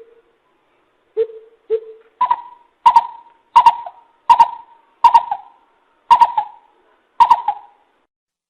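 Greater coucal calling: a series of deep hoots, three lower ones at first, then about eight higher, louder ones at a steady pace of roughly one and a half a second.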